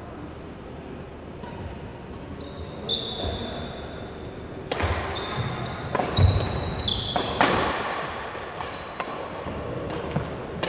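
Badminton rackets striking a shuttlecock in a doubles rally: a few sharp hits, mostly in the middle stretch. Sports shoes squeak briefly on the wooden court floor between the hits.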